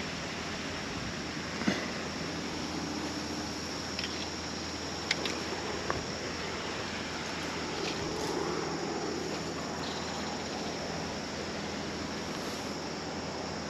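Steady, even rushing of water, with a few small clicks and taps.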